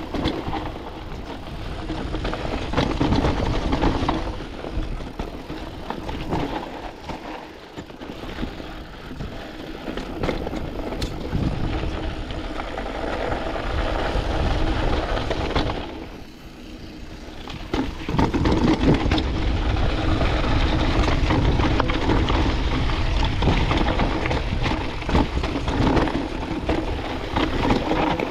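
Canyon Spectral AL 6.0 mountain bike ridden down a dusty, rocky trail: tyres crunching over gravel and stones, the bike rattling over bumps, with wind rushing over the microphone. The noise drops for a couple of seconds a little past halfway, then picks up again.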